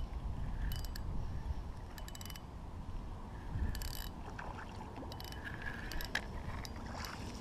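Spinning reel being cranked to retrieve a cast: short spells of rapid mechanical clicking from the reel, over a low rumble.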